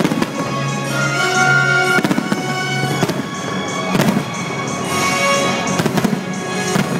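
Aerial fireworks shells bursting with sharp bangs about once a second, over loud sustained show music.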